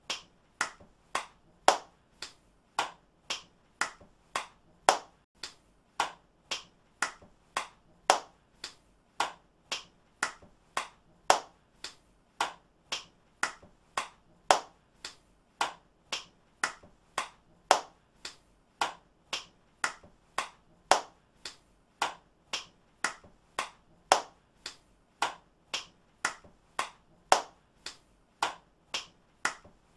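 A person clapping hands, single sharp claps repeated at a steady pace of about two a second, some louder than others.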